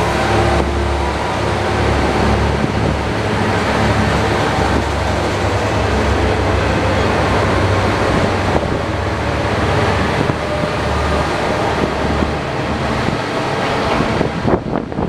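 Four-car Kanto Railway KiHa 5000 diesel railcar train pulling out: diesel engines running under load with a low steady drone, and wheels rumbling on the rails as the cars pass. The sound falls away near the end.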